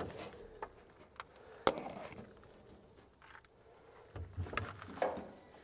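Scattered light clicks and knocks of hands working on parts of a rusty old diesel engine that is not running, with one sharper click a little over a second and a half in and a few dull thumps near the end.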